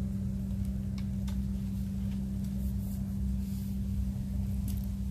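A small engine running with a steady low drone, with a few faint clicks.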